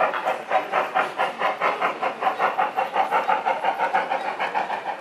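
Model steam locomotive with a sound decoder, chuffing in an even rhythm of about five beats a second that quickens slightly as it runs, with a steady tone underneath after about a second and a half.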